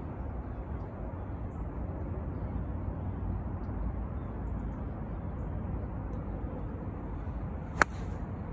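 An 8-iron striking a golf ball off turf: one sharp, crisp click near the end, over a steady low background rumble.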